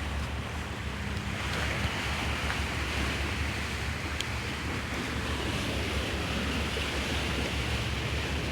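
Sea waves washing against the shore, swelling a little about a second in, with wind buffeting the microphone as a low rumble.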